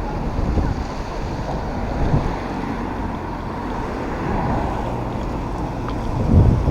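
Wind buffeting the microphone in a steady low rumble, gusting stronger near the end.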